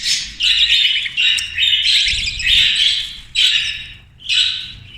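Young budgerigars in a cage giving repeated raspy squawking calls, roughly two a second, one after another.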